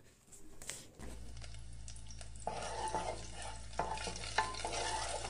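Eggs frying and sizzling in a nonstick pan while a silicone spatula stirs and scrapes them into pieces, with repeated scraping strokes from about halfway. A steady low hum sits underneath from about a second in.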